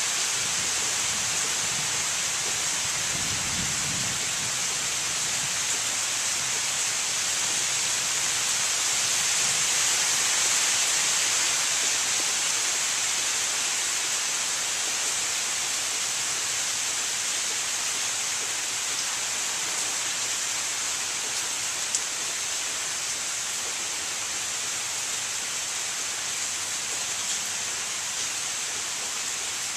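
Steady rain falling on maple foliage, an even hiss, with a brief low rumble about three to four seconds in.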